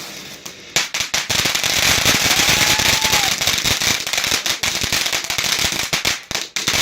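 Fireworks finale: a dense, rapid barrage of crackling bangs that breaks out about a second in and keeps going, with a faint short whistling tone partway through.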